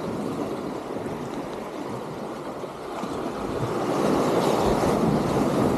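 Sea surf washing against the concrete tetrapods of a breakwater, a steady rush that swells louder about four seconds in.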